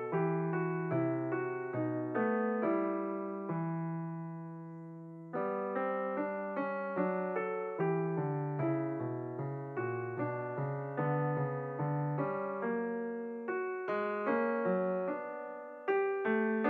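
Background piano music, a gentle run of single notes and chords. About three and a half seconds in a chord is held and dies away, and the playing picks up again a little after five seconds.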